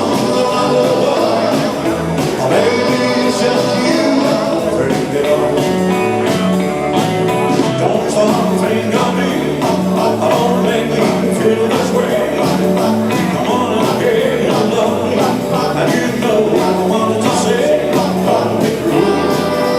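Live band playing 1950s-style rock and roll, with a singer over a steady bass line.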